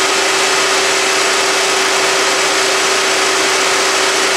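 Ford Escape's 1.5-litre EcoBoost four-cylinder idling with the hood open: a steady hum with a constant tone over an even rushing noise.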